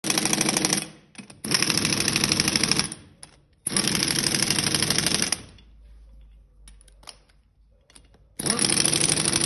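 Pneumatic impact wrench hammering in four bursts of rapid rattling with short pauses between.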